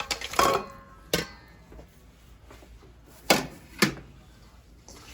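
Kitchenware being handled: a few sharp clinks and knocks of a dish and utensils on a counter. The first clink, near the start, rings briefly. The others come about a second in and twice more a little after three seconds.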